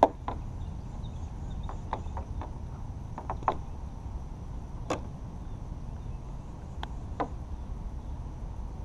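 Scattered light clicks and taps as a small bass and its hook are handled and unhooked in a kayak, starting with one sharper knock, over a steady low rumble.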